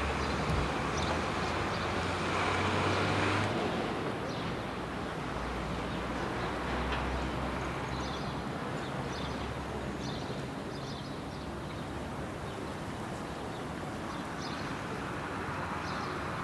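Steady vehicle noise with a low engine hum, louder for the first few seconds and then settling lower.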